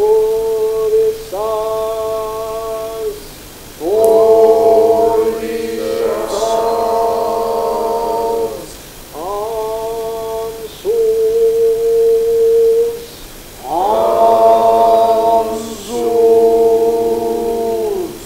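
Slow vocal chant: long held notes sung in phrases of two to three seconds, each starting with a short upward slide, with brief pauses between the phrases.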